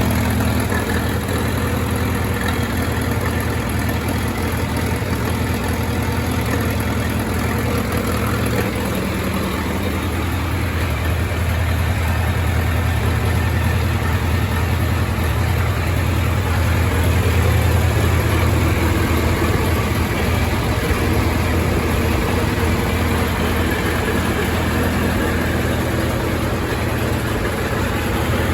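1928 Farmall Regular's four-cylinder engine idling steadily.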